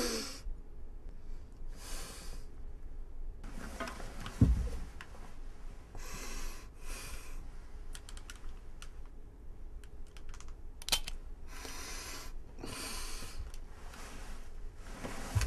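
A man breathing hard and raggedly, a hissing breath every second or two, with a single thump about four and a half seconds in.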